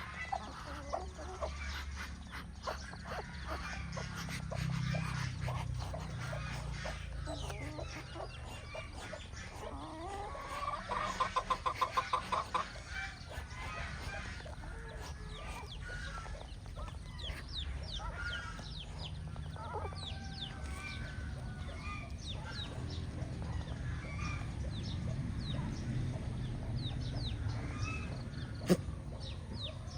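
Mother hen clucking to her brood, with a quick run of loud clucks about a third of the way in, while the chicks keep up a steady chorus of short high peeps. A low rumble runs underneath, and there is one sharp click near the end.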